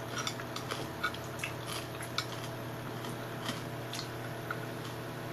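Light, irregular clicks of a fork against a plate during a meal, over a steady low hum.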